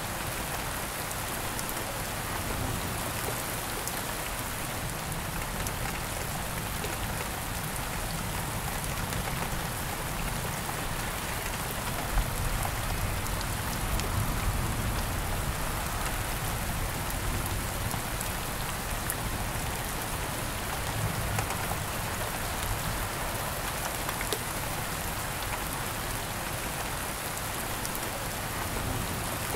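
Steady rain falling, a continuous even hiss with scattered ticks of individual drops striking a surface.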